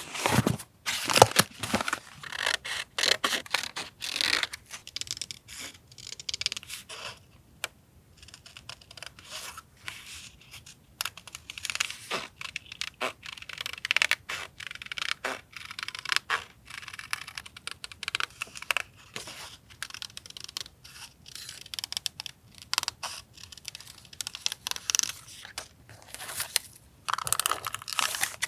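Paper collage work for a journal: stickers and tape peeling off and being pressed down, paper rustling and crinkling, with many short taps and clicks.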